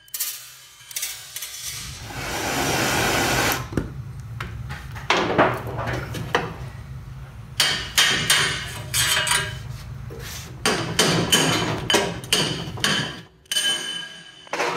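Hammer strikes on metal in runs of quick taps, knocking the steering head bearing races out of a 1961 Norton Manxman frame's headstock. A rasping noise of about a second and a half comes about two seconds in.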